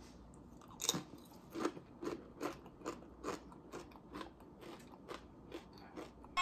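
A crunchy tortilla chip with avocado dip bitten with a loud crunch about a second in, then chewed with regular crunches, a little over two a second, that grow fainter.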